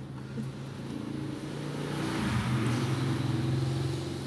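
A motor vehicle's engine passing by, its hum and noise swelling to a peak in the middle and easing off near the end.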